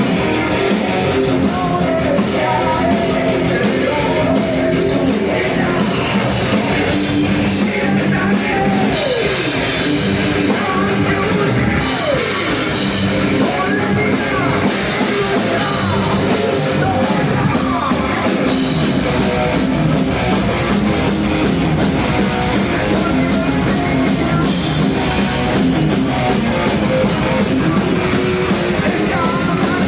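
Rock band playing live at a sound check: electric guitar with bass and drums, and a singer's voice.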